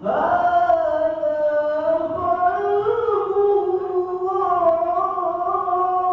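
A man recites the Quran in the melodic tarannum style into a microphone. A new phrase starts with a quick upward swoop, then runs on as long, drawn-out notes that waver slowly, with a small step up in pitch about three seconds in.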